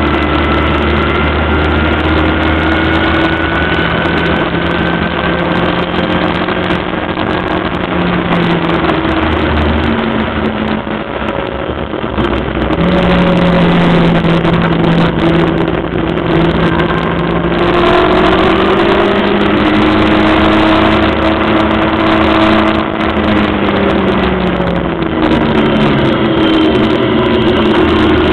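Onboard sound of a 1300cc Locost race car's engine at racing speed, its revs rising and falling again and again. It eases off and quietens about ten seconds in, then picks up again. Several falling steps in pitch come near the end.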